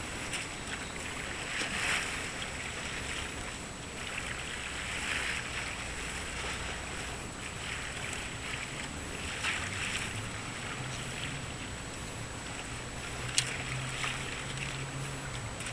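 Harbour waterside ambience: water lapping against the quay in slow swells every few seconds, with a low engine hum coming in about halfway through and one sharp click near the end.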